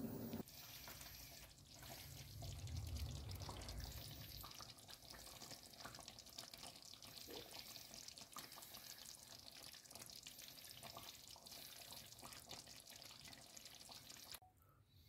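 Chicken simmering in tomato sauce in a pan: faint, steady bubbling and crackling that drops away near the end.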